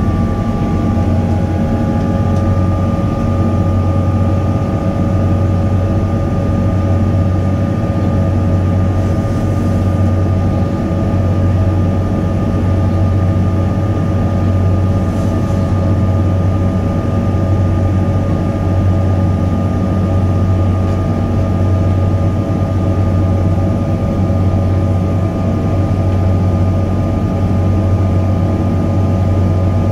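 Cabin noise inside a Boeing 777-200ER climbing out: a loud, steady drone of engines and rushing air, with a deep hum underneath and several steady whining engine tones.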